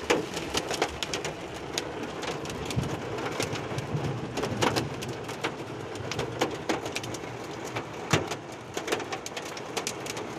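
Rain mixed with hail drumming on a truck's roof and windshield, heard from inside the cab: a steady rush of rain with frequent sharp clicks and knocks of hailstones striking.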